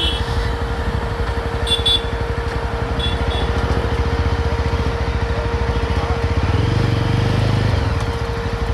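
Yezdi Roadster motorcycle engine running as the bike is ridden, a steady rapid pulsing that swells louder about six and a half seconds in.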